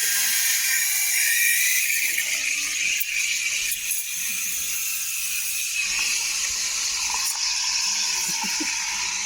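Espresso machine steam wand running, a steady hiss that changes slightly in tone about six seconds in.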